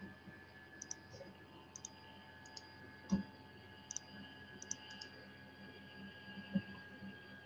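Computer mouse clicking: a series of short, sharp clicks, many in quick press-and-release pairs. Two dull knocks come about three seconds in and near the end, over a faint steady hum.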